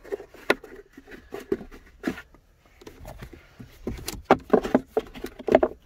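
Plastic console trim and a felt-lined storage-bin insert being handled and fitted in a car's center console: a run of light clicks, knocks and rubbing, busiest about four seconds in.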